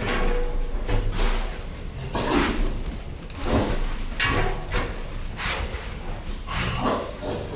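Pigs in their pens in a pig barn, an irregular series of short noisy bursts about once a second.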